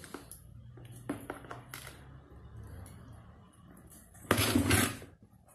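Clinks, knocks and scraping as an electric motor stator, its finned housing holding freshly placed copper coils, is handled and shifted on a workbench during rewinding. A louder rattle lasting under a second comes about four seconds in.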